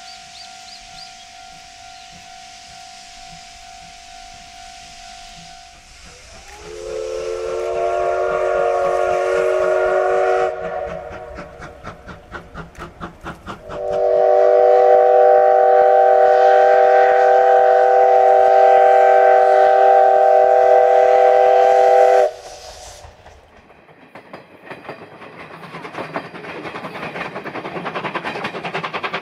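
Steam whistle of the class C12 tank locomotive C12 66 blown in long blasts, each a held chord of several pitches that slides up as it opens. Between the two blasts comes a short run of rapid, even exhaust beats. The second blast is louder, about eight seconds long, and cuts off sharply, followed by a growing rush of steam and chuffing.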